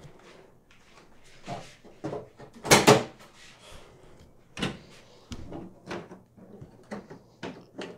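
Knocks and clicks of handling around a pickup truck bed, the loudest a sharp knock about three seconds in, followed by smaller clicks at the bed's plastic side storage cubby lid.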